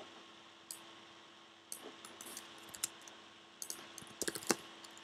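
Computer keyboard keystrokes and clicks, scattered and quiet, bunched in two short flurries, about two seconds in and again near the end, over a faint steady hum.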